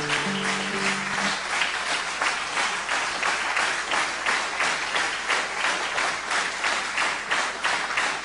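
An orchestra's final held chord dies away about a second in, and audience applause follows, the claps falling into an even rhythm of about two to three a second.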